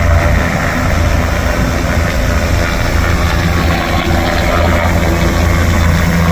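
Medical helicopter running steadily, a loud even drone with a strong low hum that does not change.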